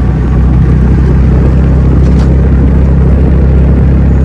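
A motorbike's steady low rumble while riding along at a constant speed, with engine and road noise loud and unbroken.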